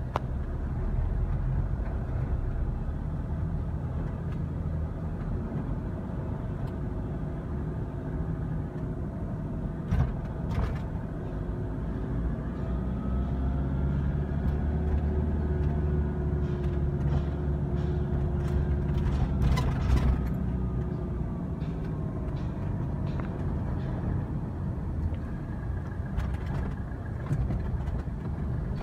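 Road traffic and engine rumble heard from inside a car moving slowly in congested traffic. In the middle, a whine rises and falls over several seconds, and a few sharp clicks and knocks come through, one about ten seconds in and several more around twenty seconds in.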